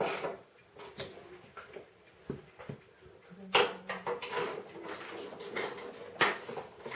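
Clicks and knocks of hand tools and metal parts being handled during snow blower auger reassembly, irregular and scattered, with the sharpest knocks about three and a half and six seconds in.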